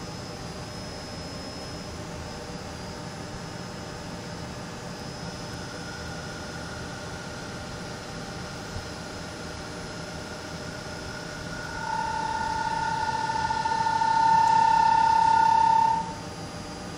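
Gildemeister CTX CNC lathe running with a steady machine hum while its insert tool turns a metal bar. About twelve seconds in a steady whistling tone joins, grows louder about two seconds later, and cuts off suddenly near the end.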